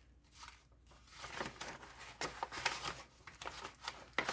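Paper pages rustling and sliding as they are handled and pushed into a paper envelope. Soft scattered crinkles and taps, faint at first and louder near the end.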